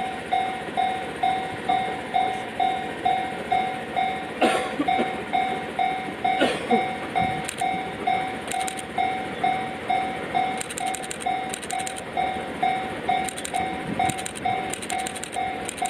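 Japanese level crossing warning bell ringing in an even, repeating ding, about two rings a second. Under it a JR West 273 series electric limited express train passes over the crossing, its wheels knocking and clacking over the rail joints.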